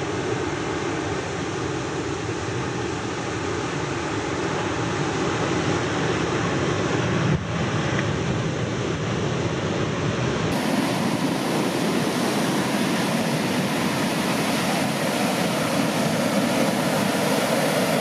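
Steady rush of large surf breaking on the shore, with a brief click about seven seconds in.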